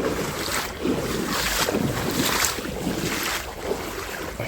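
Footsteps wading through ankle-deep river water, a splash with each step a little over once a second.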